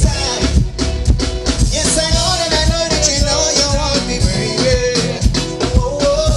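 Band music with a steady drum beat; a singer holds one long, slightly wavering note from about two seconds in until near the end.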